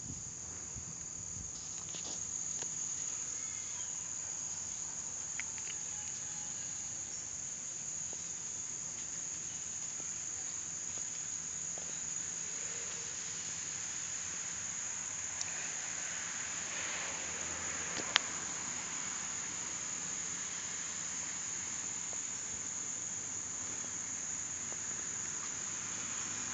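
Steady, high-pitched insect chorus of crickets or similar insects singing without pause. A single sharp click cuts through about two thirds of the way in.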